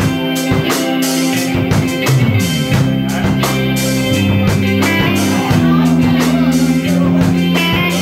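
Live rock band playing an instrumental passage: electric guitars and bass holding notes over drums, with regular drum hits.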